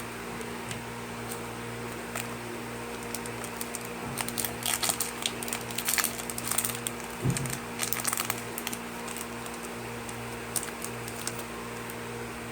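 Yu-Gi-Oh trading cards and their foil booster-pack wrapping being handled: a busy run of small clicks and crinkles in the middle, over a steady low hum.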